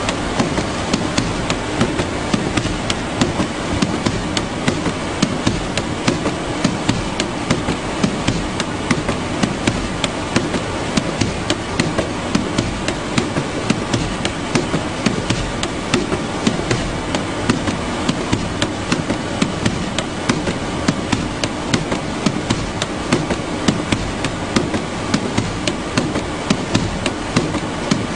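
Parcel-sorting conveyor running: a steady mechanical noise with frequent sharp clicks and knocks, about two a second.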